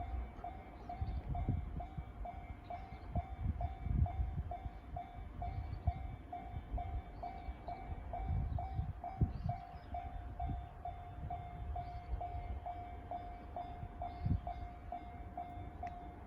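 Japanese level-crossing warning bell sounding the JR standard electronic tone, a single ringing note repeating steadily at about two strikes a second, over an uneven low rumble.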